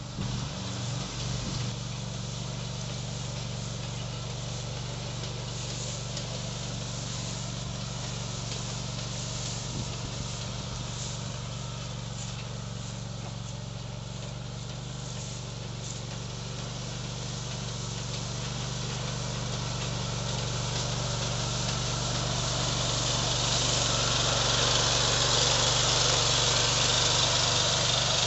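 Small engine of a walk-behind motor unit running steadily as it drives a front-mounted hay pusher through cut hay on a steep slope. It grows louder over the last several seconds as the machine comes close.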